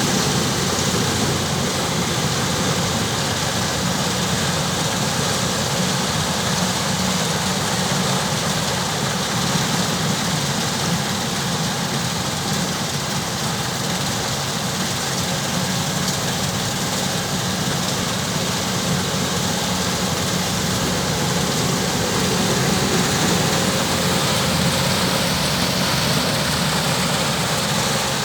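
Kubota DC-105X rice combine harvester running steadily, its diesel engine and threshing machinery giving a loud, even mechanical noise with a low hum.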